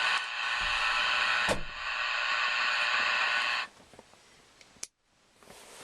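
Loud, steady hiss of CB radio static from a Cobra 139 transceiver, broken by brief clicks, that cuts off suddenly a little over halfway through; a single sharp click follows about a second later.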